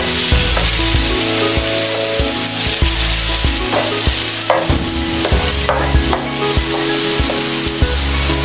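Shredded cabbage and carrots sizzling as they stir-fry in a hot metal pan, being charred a little, with a wooden spatula scraping and knocking against the pan many times as the vegetables are tossed. Background music plays under it.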